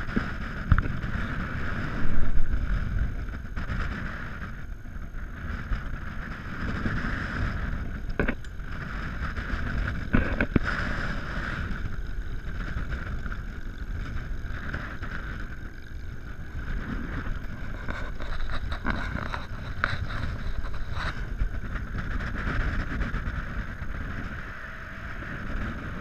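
Sixchuter SR7XL powered parachute descending in flight: wind buffeting the on-board microphone over a steady drone, with a few short clicks about eight and ten seconds in.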